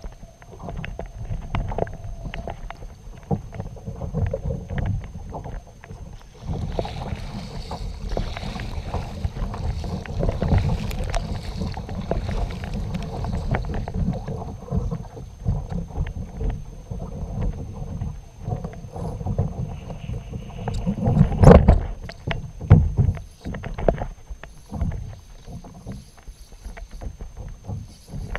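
Water sloshing and slapping against a kayak's hull, with frequent small knocks on the boat and low wind rumble on the microphone. A single loud thump comes about two-thirds of the way through.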